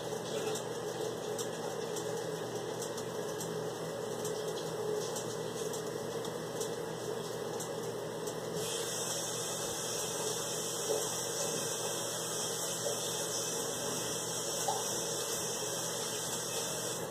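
Ham sizzling on an open electric contact grill: a steady hiss with faint pops, growing brighter and hissier about halfway through.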